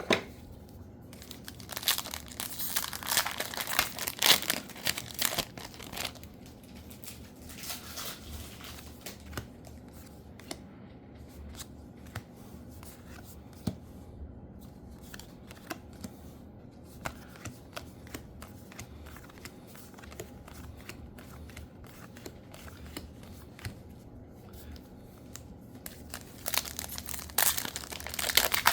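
Foil booster-pack wrappers of trading cards being torn open and crinkled. Heavy crinkling and tearing for a few seconds about two seconds in and again near the end, with lighter rustles and clicks between.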